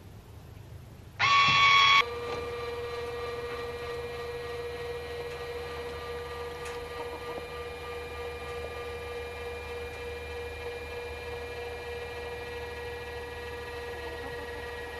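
A loud electronic beep lasting under a second, then the electric linear actuator's motor whining steadily as it extends to open the coop's automated door.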